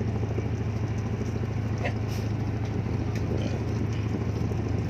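A fishing boat's inboard engine running steadily, a low, even throb with no change in speed.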